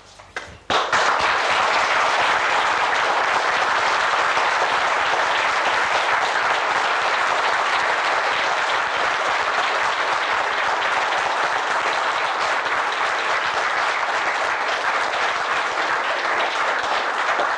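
Audience applause, a room full of people clapping, starting suddenly about a second in and holding steady.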